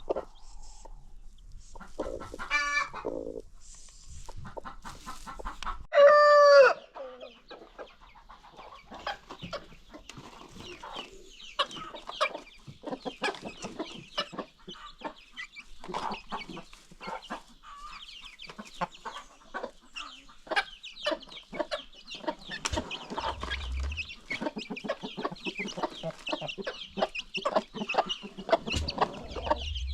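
A flock of free-range chickens clucking and calling, with many short calls overlapping. One much louder drawn-out call comes about six seconds in.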